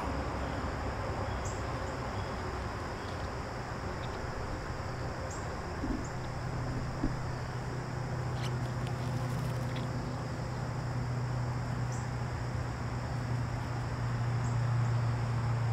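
Woodland ambience: a steady insect drone with a few short, high chirps, over a low steady hum that grows stronger partway through.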